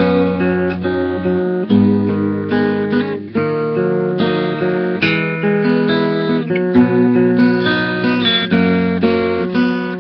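Background music: an acoustic guitar playing chords and picked notes with no singing.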